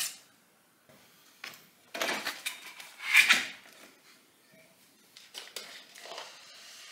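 Cardboard-flanged filament spools being handled and pushed onto a 3D printer's spool holder: a knock at the start, scattered clicks, then two bouts of clattering and scraping, the louder about three seconds in, and more small clicks later. A steady hiss starts near the end.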